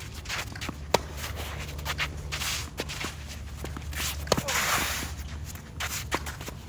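Tennis play: shoes scuffing and stepping on the court, with sharp knocks of the tennis ball about a second in and again a little past four seconds, followed by a short scraping hiss.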